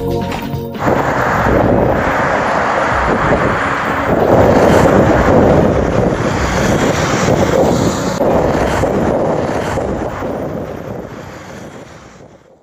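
Background music cuts off about a second in, leaving a steady rushing noise like wind on the microphone of a moving bicycle, which fades out near the end.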